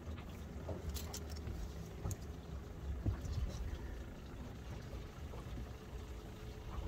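Boat's live well pump humming faintly as the well fills, under a low wind rumble, with a few light knocks on the deck about one, two and three seconds in.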